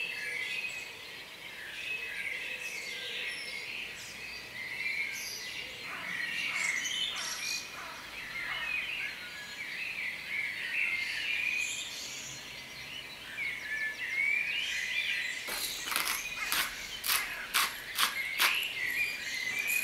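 Birds chirping and singing in short, busy phrases. In the last four seconds a quick series of sharp clicks joins in.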